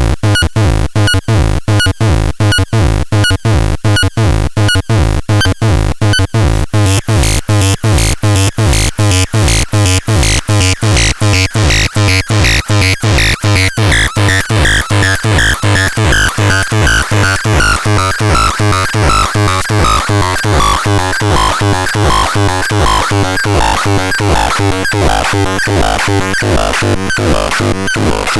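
Electronic synthesizer playing a fast repeating sequenced pattern over a steady low bass pulse. The tone turns brighter about seven seconds in, and later a resonant filter peak sweeps slowly downward.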